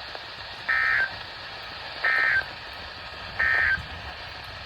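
NOAA Weather Radio SAME end-of-message code: three short digital data bursts about 1.4 seconds apart, over the receiver's steady hiss. It marks the end of the special marine warning.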